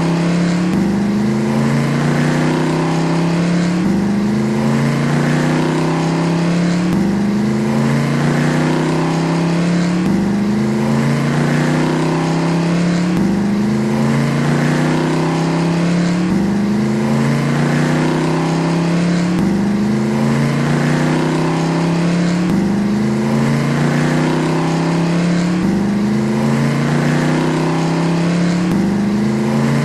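Car engine accelerating, its pitch climbing and then dropping back, over and over about every three seconds in an even, repeating cycle.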